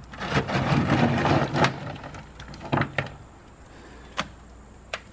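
Gloved hands crunching and pressing chunks of dry ice onto a car's floor pan, then a few single sharp cracks in the second half: the frozen sound-deadening mat cracking and popping loose from the metal.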